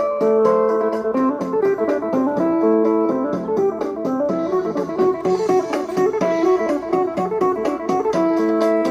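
Thai procession band music: a plucked electric lead melody over a fast, steady percussion beat.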